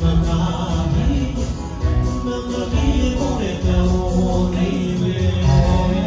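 Albanian wedding music with singing over a heavy bass beat.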